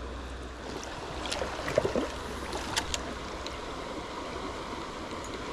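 Shallow river running steadily over a stony bed, with a few faint clicks.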